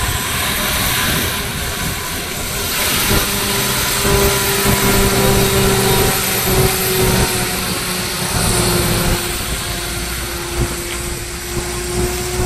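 Loaded Tata Signa tractor-trailer's diesel engine pulling up the hill as the truck passes close by: a steady deep engine note with a whine over it from about three seconds in.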